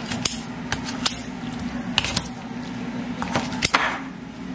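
Eating utensils clinking and tapping against bowls and dishes: a scatter of sharp, short clinks at uneven intervals.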